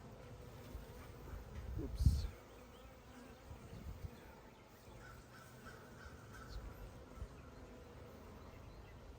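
A single sharp knock about two seconds in, something bumped or dropped while working the hive frames. Fainter clicks and knocks from handling the hive equipment follow.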